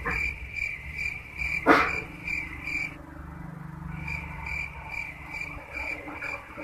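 A cricket chirping in regular pulses, about two to three a second, breaking off for about a second midway and then resuming. A single sharp knock sounds a little under two seconds in.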